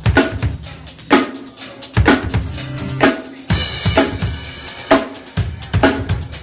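Live band sound check: a drum kit playing a steady beat, with a strong hit about once a second over low bass notes, and a brief held chord about halfway through.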